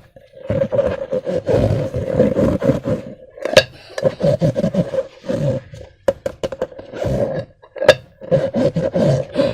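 Slime-filled rubber balloons being squeezed and worked by hand: a dense run of wet squelching and rubbery creaking, with sharp snaps about three and a half and eight seconds in.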